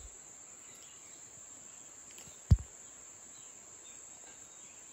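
Steady high-pitched drone of insects in jungle undergrowth, with one sharp knock about halfway through.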